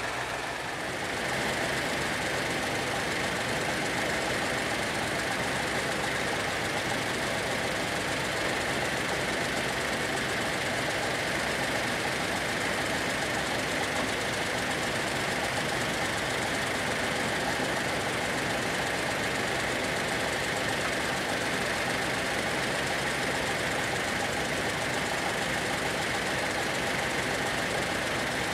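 Chevrolet pickup truck engine idling steadily, with a slight step up in level about a second in.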